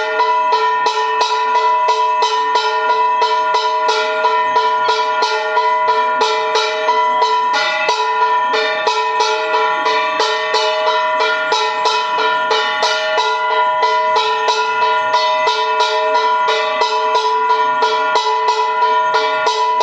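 Background music: a fast, even jingling beat, about five strokes a second, over steady held tones.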